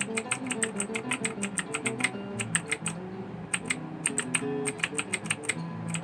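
Rakk ILIS mechanical keyboard being typed on in quick runs of clicky keystrokes, with a brief pause about halfway through.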